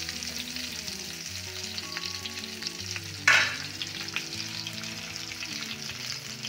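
Stuffed whole brinjals frying in hot mustard oil in a nonstick pan, with a steady sizzle and fine crackling. One louder sudden crackle comes a little over three seconds in.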